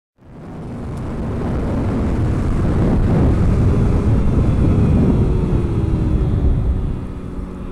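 A motor vehicle passing by: engine and road noise swell over the first few seconds, then fade as the engine pitch falls near the end.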